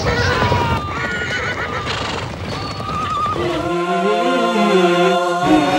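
Horses neighing over the clatter of hooves from a charging chariot army. About three and a half seconds in, a sustained chanted vocal with music comes in.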